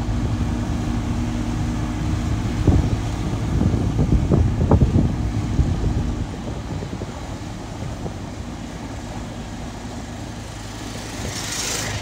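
Dynapac single-drum road roller running as it drives over earth subgrade, a steady low machine hum with irregular heavier rumbles. The hum's even tone stops about halfway through, leaving a lower rumble.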